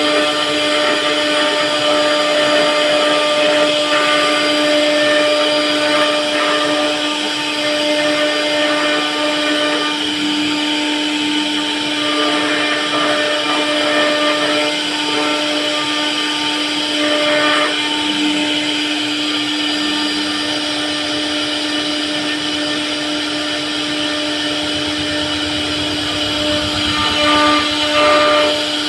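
CNC router spindle running steadily at a constant high pitch as it carves a wooden door panel.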